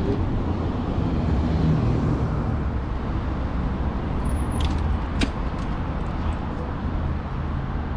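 Steady city street traffic noise with a low rumble, with a few short clicks about five seconds in.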